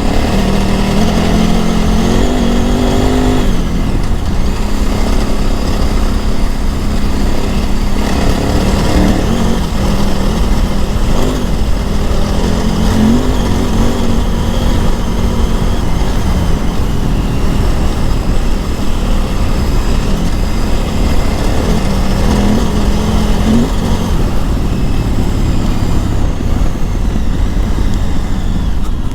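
KTM 950 Adventure S's LC8 V-twin engine running under way as the bike is ridden off-road. The revs climb over the first few seconds, then drop sharply, with short throttle rises again about halfway through and later on.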